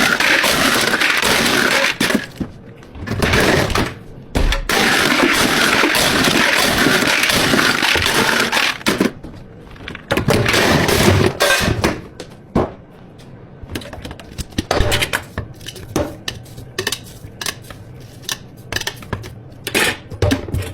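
Behind-the-counter drink preparation: for the first nine seconds or so, stretches of loud, steady, harsh noise from the work, broken by short pauses, then many quick clinks and knocks of cups, containers and utensils being handled.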